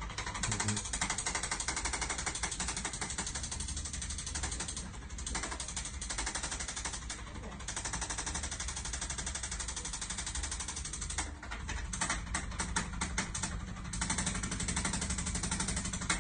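Handheld percussion massager hammering rapidly on the tight quadriceps to loosen them, a fast steady rattle with a few brief pauses.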